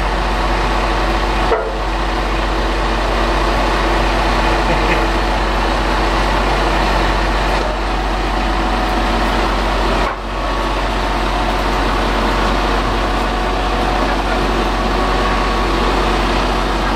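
A heavy diesel engine running steadily at a constant speed, with a low, even hum.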